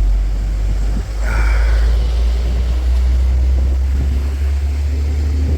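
Wind buffeting the phone's microphone: a loud, steady low rumble that drops away suddenly at the end, with a brief higher hiss a little over a second in.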